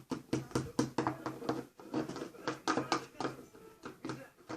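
Spoon stirring slime mixture of glue and borax water in a bowl: rapid, repeated scraping and tapping strokes as the mixture starts to thicken.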